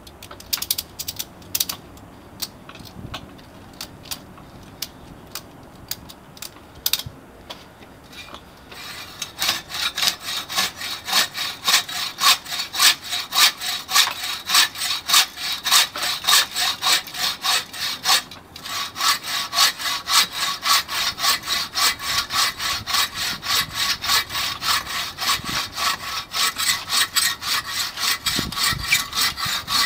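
TrailBlazer 24-inch takedown buck saw cutting through a 10-inch log. A few scattered clicks come first, then from about nine seconds in, steady back-and-forth strokes at about two a second, with a brief break a little past the middle.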